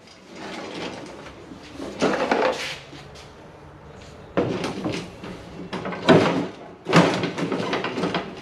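Several separate knocks and clatters, like things being handled and set down in a small workshop, the loudest a little past the middle.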